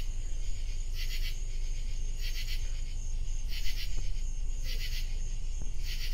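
Night insects calling: a steady high trill with a louder pulsing chirp repeating a little less than once a second, over a low steady rumble.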